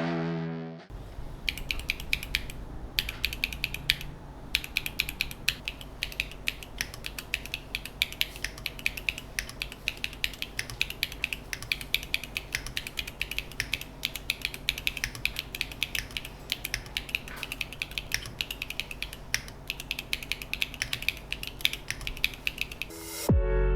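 Fast, continuous typing on a NEO65 mechanical keyboard with Feker White Marble linear switches (POM stems, polycarbonate top and PA66 bottom housings) and no case foam: a dense stream of key clacks.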